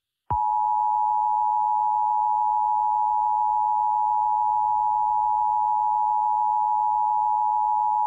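Emergency Alert System attention signal: a steady two-tone alarm tone held unbroken for about eight seconds, announcing an emergency alert message.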